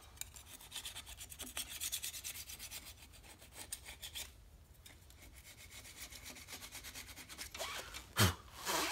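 Hand scraper scraping old gasket residue off the flange of a Ford Model A rear axle housing, in quick repeated strokes with a short pause about four seconds in. A brief louder sound comes near the end.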